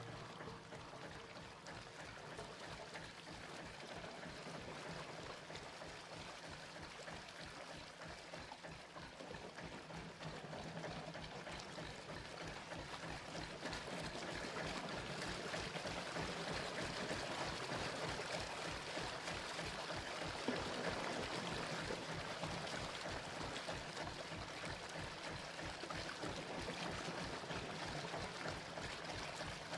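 Rushing, water-like noise from an ambient electronic track, with a faint low drone underneath, slowly swelling louder; a single small click about twenty seconds in.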